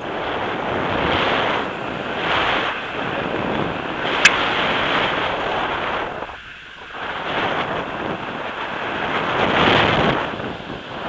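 Rushing air from a paraglider in flight buffeting the camera microphone, swelling and easing in gusts, with a short lull about two-thirds of the way through. A single sharp click about four seconds in.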